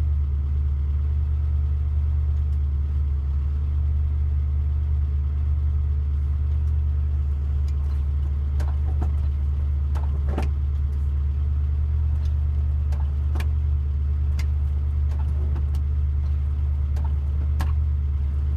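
Morris Minor engine idling steadily, heard from inside the car's cabin. Scattered sharp clicks start about eight seconds in.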